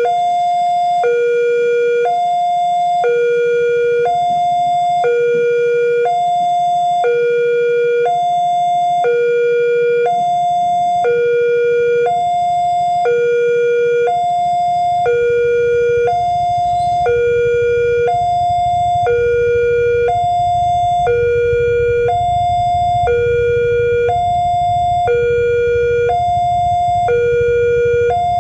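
Railway level-crossing warning alarm sounding its repeating two-tone electronic bell: a higher tone, then a longer lower one, about once every two seconds. It signals that the barrier is down and a train is due. A low rumble builds beneath it in the second half.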